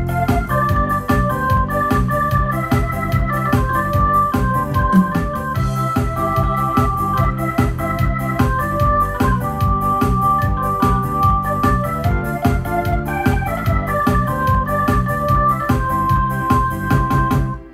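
Korg Pa-series arranger keyboard played live: a melody in held notes over a bass line and a steady drum beat from the accompaniment. The music stops at the very end.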